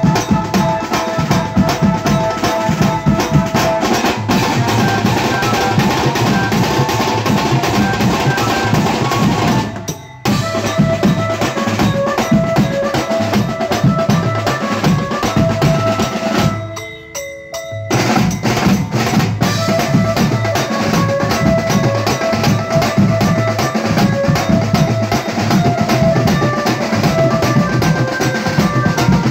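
Drum band playing a fast beat on a row of snare drums struck with sticks, crash cymbals and a big bass drum, under a steady melody line. The drums stop twice briefly, about ten and seventeen seconds in, and in the second break a few falling melody notes sound alone before the drums come back in.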